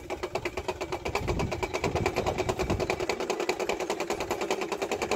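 A flag on a pole flapping hard in strong wind: a rapid, even fluttering rattle, with wind rumbling on the microphone.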